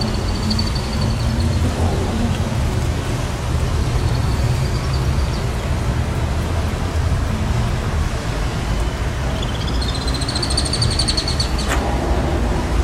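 Steady low outdoor rumble, with a few thin high bird chirps over it; the last and longest, a trill, comes about ten seconds in.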